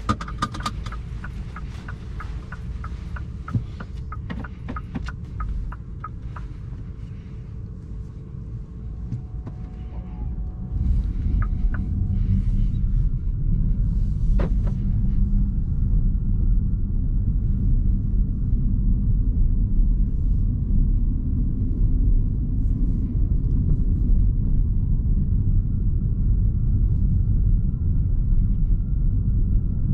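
Low, steady road and drivetrain rumble heard inside the cabin of a MINI Cooper S E ALL4 Countryman plug-in hybrid on the move. A run of quick, regular ticks comes in the first few seconds. The rumble grows clearly louder about eleven seconds in and stays at that level.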